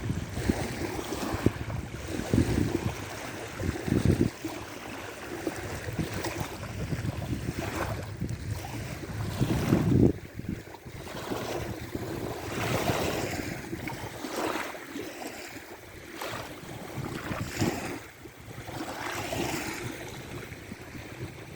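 Waves washing on a large reservoir, the noise rising and falling in swells, with gusts of wind rumbling on the microphone in the first few seconds and again about halfway through.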